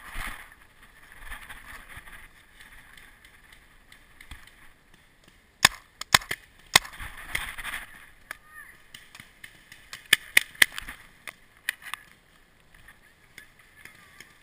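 Paintball marker shots: four sharp pops in quick succession about halfway through, then three more in a quick group and a last single one a few seconds later.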